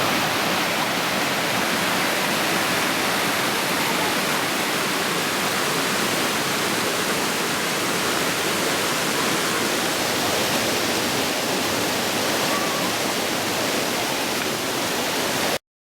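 Waterfall rushing with a steady, even roar of falling water, which cuts off suddenly near the end.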